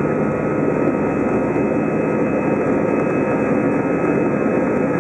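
Airbus A320 cabin noise heard from a window seat over the wing while the airliner moves on the ground: a steady jet-engine rumble and hiss with faint whining tones, holding level without spooling up.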